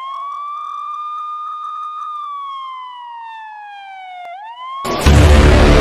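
Emergency vehicle siren wailing: one slow rise and fall in pitch, then starting to climb again. About four and a half seconds in it is cut off by a louder burst of rumbling noise that opens into dramatic music.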